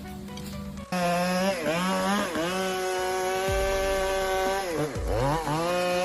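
Chainsaw running at high revs, starting abruptly about a second in. Its pitch sags briefly several times under load in the wood, most deeply near the end.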